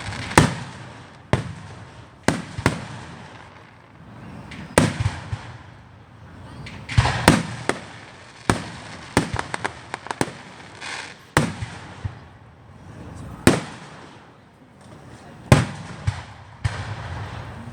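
Fireworks going off: about a dozen sharp bangs at irregular intervals, each with a short echo after it. There are quick strings of crackles about seven and ten seconds in.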